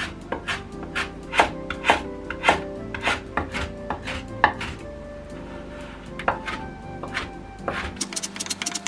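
Kitchen knife cutting a carrot on a wooden cutting board: sharp knocks at uneven spacing, about two a second, as it slices the carrot into thin strips. About a second before the end, a quick steady run of chops begins as the strips are minced.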